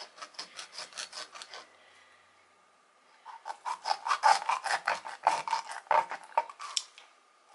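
A knife sawing slits into the skin and flesh of a whole croaker on a wooden cutting board, in quick repeated strokes. The strokes come in two runs, with a pause of about a second and a half between them.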